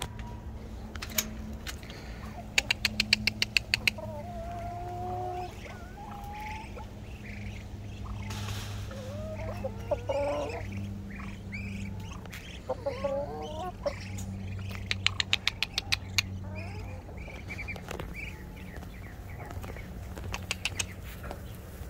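Backyard chickens clucking and squawking in short gliding calls, with two bursts of rapid clicking and a steady low hum underneath.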